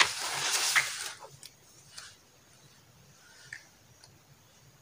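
Paper page of a spiral-bound notebook being turned: a rustle lasting about a second, followed by a few faint soft ticks.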